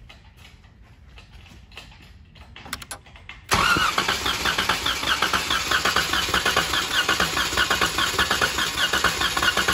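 About three and a half seconds in, the starter cranks the 3.6 Pentastar V6 for about six seconds, a steady whir with a fast rhythmic pulse as the engine turns over without starting, then stops. This is a compression test on one cylinder, which builds only about 80 psi, well under the 100 psi minimum: low compression.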